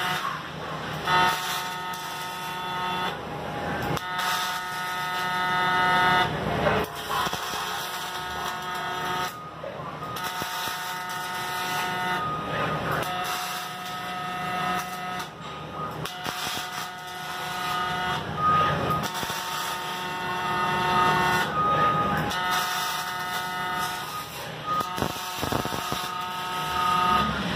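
Robotic arc welding: the welding arc buzzes steadily in runs of several seconds, with short crackling breaks between them as the torch stops and starts on each weld.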